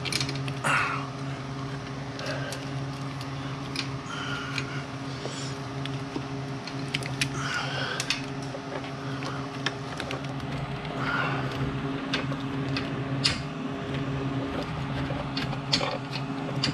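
Scattered small clicks and rattles of plastic wiring-harness connectors and wires being handled and unplugged, over a steady low hum.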